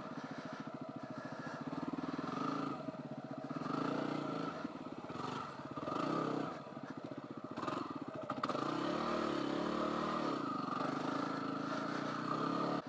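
Yamaha WR250R's single-cylinder four-stroke engine pulling through deep sand, its revs rising and falling with the throttle, with one clear rev-up and drop about nine to ten seconds in.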